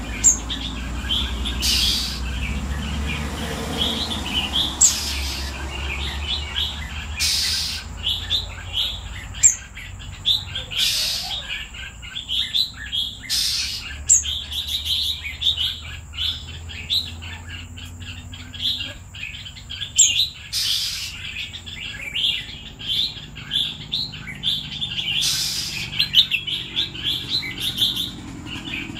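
Red-whiskered bulbul singing: rapid runs of short chirping notes, broken by about a dozen loud, harsh bursts spread irregularly through.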